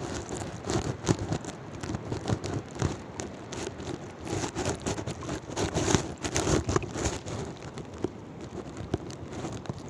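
Shallow seawater splashing and sloshing in irregular surges, with wind buffeting the microphone.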